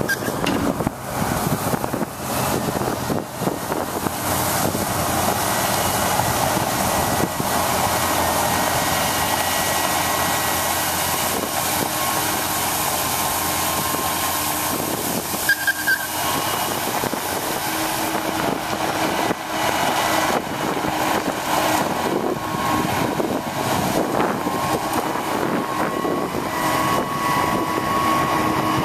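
1998 International water truck running while its spray system jets water onto the ground: a steady rushing hiss over the diesel engine, with a brief high squeak about halfway through.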